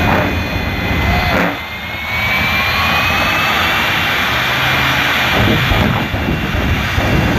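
Jet car's turbojet engine running loud on the start line with its afterburner lit. A high whine rises slowly in pitch through the noise, after a brief drop in level about one and a half seconds in.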